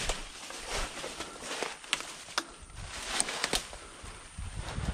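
Footsteps crunching through dry leaves and brush, with twigs snapping in irregular sharp cracks, a few louder ones in the middle.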